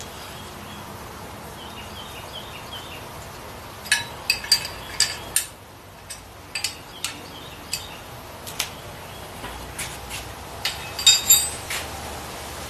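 Sharp metallic clinks and clanks, about a dozen spread over the last eight or nine seconds and loudest about eleven seconds in, as a homemade angle-iron piston stop, its bolts and hand tools are set down and fitted on the bare deck of a Ford 460 big-block engine. A steady hiss runs underneath.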